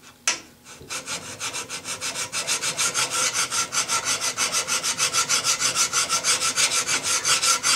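Single-cut file draw-filing a metal bar held in a vise: quick, even rasping strokes, several a second, starting about a second in after a single knock. This is draw filing, a finishing pass that leaves a very fine finish.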